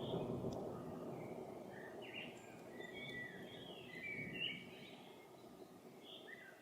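Low thunder rumble dying away, while a songbird sings a quick run of chirps about two seconds in and a few more near the end.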